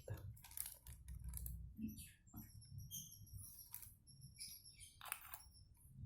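Faint, scattered small clicks, scrapes and rustles of a bait mixture being stirred and handled in a bowl.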